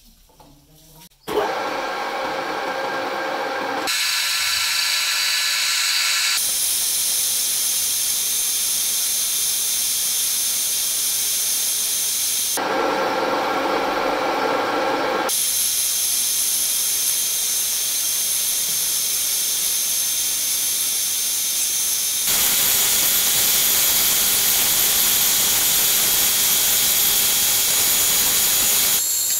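Metal lathe turning a metal tube, the cutting tool taking chips off the spinning workpiece: a loud, steady, high-pitched cutting noise with a few thin steady tones. It starts suddenly after about a second of quiet and changes abruptly several times.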